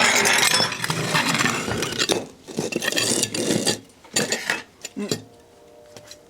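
Clattering and scraping as a charred, microwaved plush toy is pulled out of a microwave oven over its dish: dense for about two seconds, then scattered knocks and clinks.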